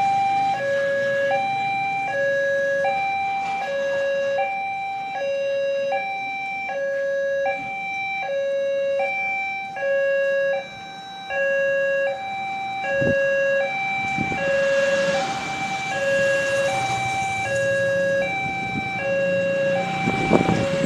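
Railway level-crossing warning alarm sounding an electronic two-tone signal: a low note and a higher note alternate, each about half a second, repeating steadily. It is the warning that a train is coming and the barrier is closing. Motorbikes pass close by, the loudest one near the end.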